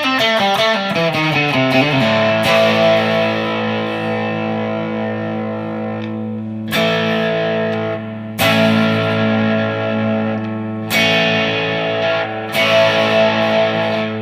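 G&L ASAT Classic Tribute electric guitar on its single-coil bridge pickup, played straight into an amp's blues channel with moderate overdrive. A quick descending run of notes, then chords struck about five times and left ringing.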